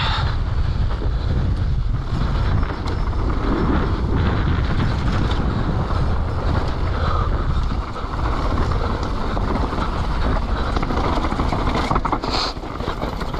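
Wind rushing over the microphone and a mountain bike rattling and clattering over rough ground at speed on a downhill descent.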